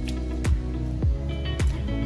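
Background music with a steady deep drum beat, a little under two beats a second, over held chords.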